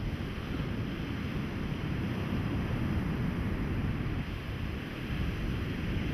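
Steady wind buffeting the microphone over the wash of surf on a sandy beach, a continuous rumbling noise with no distinct events.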